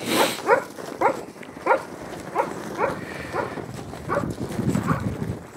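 A dog barking repeatedly in short, high yaps, each falling in pitch, about one or two a second, with steps shuffling in snow about four seconds in.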